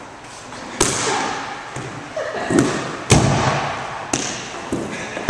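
Rubber dodgeballs slamming into the floor, walls and players in a gymnasium: three loud sharp thuds and several softer ones, each with a short echo off the hall.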